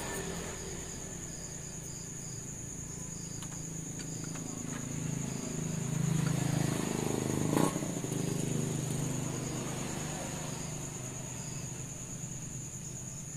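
Crickets trilling steadily, with a low rumble that swells and fades in the middle and a single sharp click about halfway through.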